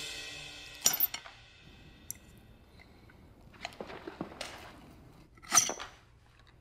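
Steel knife and fork cutting steak on a china plate: a few sharp clinks about a second in, soft scraping, then one loud ringing clink of metal on the plate near the end.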